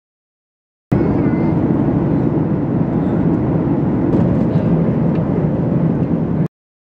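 Airliner cabin noise in flight: a steady, loud rush of engine and airflow noise heard inside the cabin. It cuts in about a second in and cuts off abruptly near the end.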